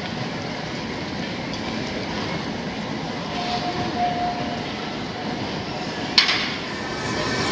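Street tram running along its rails, a steady rolling rumble of wheels on track. A brief high tone comes about three and a half seconds in, and a single sharp strike that rings briefly comes about six seconds in.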